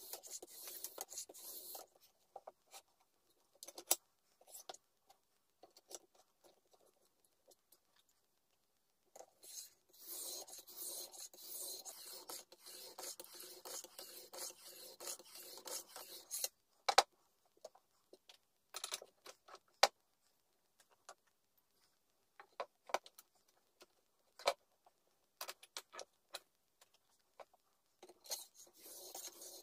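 Japanese knife blade held in a sharpening jig and rubbed across a whetstone, in stretches of steady scraping strokes. Between them are pauses with a few sharp clicks and taps.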